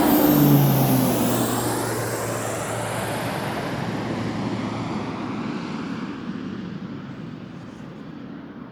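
Airliner engines passing close by: the sound is loudest about half a second in, its engine tone drops in pitch as the aircraft goes past, then it fades steadily.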